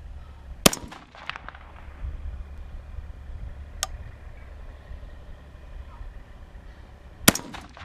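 Two gunshots from an AR-15 rifle with an 18-inch heavy fluted 5.56 barrel, one about half a second in and one near the end, each a sharp crack with a brief echo after. A fainter single crack comes about halfway between them.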